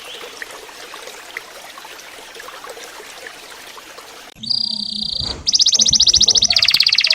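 Domestic canary song for training young canaries: a steady hiss with faint chirps, then a little over four seconds in a loud canary song cuts in abruptly, a short held trill followed by fast rolling trills.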